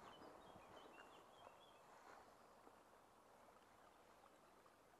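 Near silence: a faint rustle of walking through tall bankside grass, with a few faint, short high chirps from a small bird in the first two seconds.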